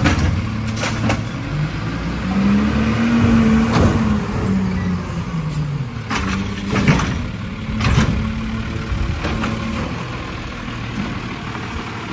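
Diesel engine of an automated side-loader garbage truck running as the truck pulls up to the carts, its pitch rising and falling about two to five seconds in. A few sharp clanks and hisses punctuate it, and near the end the truck's hydraulic arm lifts and tips a cart.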